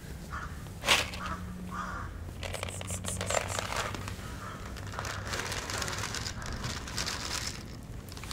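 Dry cat kibble shaken out of a plastic bottle, pattering and rattling onto concrete in a dense crackle for several seconds. A sharp rattle comes about a second in.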